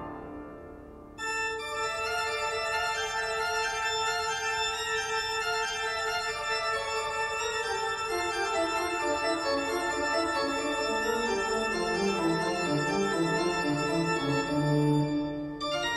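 Background music of sustained organ-like chords with a slowly falling bass line. The previous passage fades out, and a new one starts abruptly about a second in.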